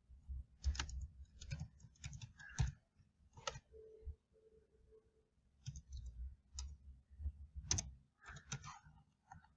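Computer keyboard keys being typed as a password is entered: irregular quick clicks in two runs, with a pause of about two seconds in the middle.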